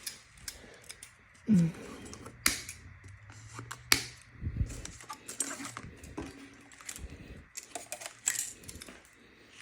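Scattered light clicks and small metallic clinks from e-bike parts and packaging being handled during unboxing.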